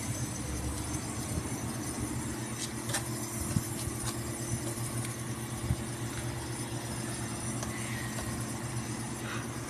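Tachiair "Chigo" air conditioner running in heat mode: a steady hum with a few fixed low tones, with two short knocks a couple of seconds apart near the middle.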